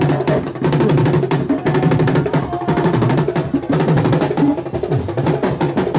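Live aloukou band music: fast, dense drumming with a driving, even beat over sustained low notes.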